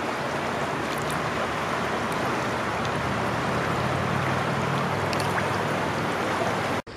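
Shallow creek water running and rippling over rocks, heard close by with a steady rushing sound that cuts off suddenly near the end.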